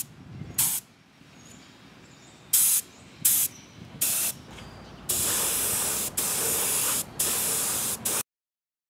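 Central Pneumatic gravity-feed detail spray gun running on compressed air, spraying paint in four short test bursts and then three longer passes of about a second each. The sound cuts off suddenly near the end.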